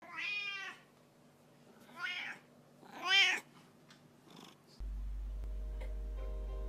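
A cat meowing three times, the third meow the loudest. A steady low hum starts about five seconds in.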